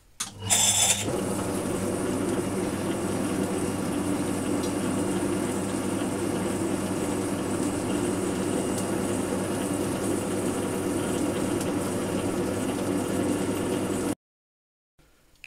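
Harrison L5A metal-turning lathe starting up with a brief louder burst, then running steadily with its six-inch chuck spinning: a constant motor and headstock-gear hum. It stops abruptly about a second before the end.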